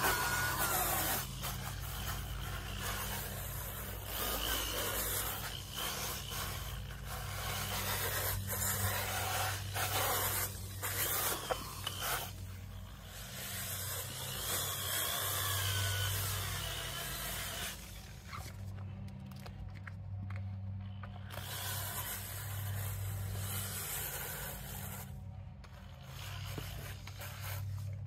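Cordless drill with a scrub brush attachment running, its bristles rubbing and scraping over wet, soapy rubber floor mats. The scrubbing stops for a few seconds about two-thirds of the way through and again briefly near the end, over a steady low hum.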